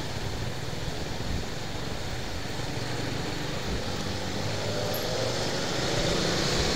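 Slow stop-and-go city traffic heard from among queued cars: a steady mix of engines running and road noise, growing a little louder near the end.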